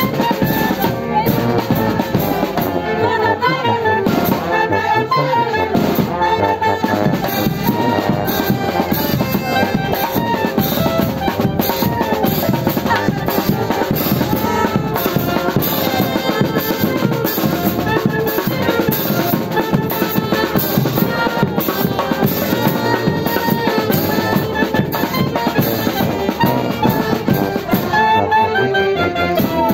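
Live brass band playing dance music: trumpets, trombone and low brass horn over drums keeping a steady beat.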